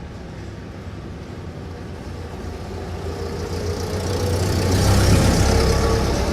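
Street traffic: a motor vehicle's engine draws closer and passes, growing louder to a peak about five seconds in, then easing off slightly.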